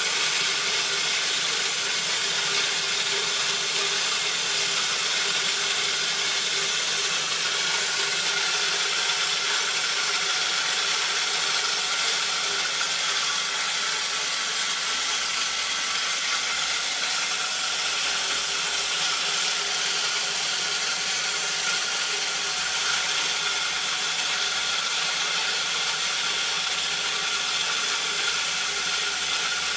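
Electric corn mill with 180 mm grinding discs, driven by a 2.2 kW motor, running at full feed while cracking dried corn kernels into grits. A steady, even grinding noise, mostly high-pitched, with no change in level.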